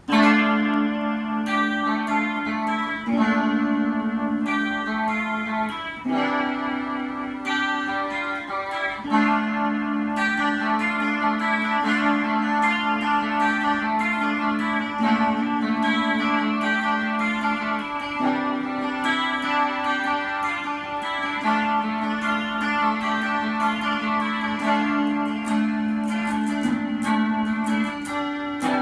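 Instrumental music led by a plucked guitar, starting abruptly.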